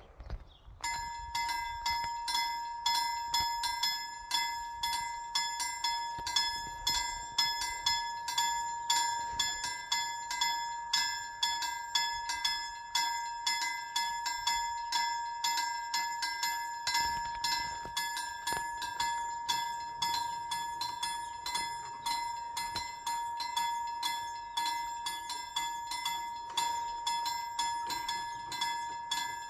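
Railroad level-crossing warning bell ringing in rapid, evenly repeated strokes, warning of an approaching train. It starts about a second in and stops near the end.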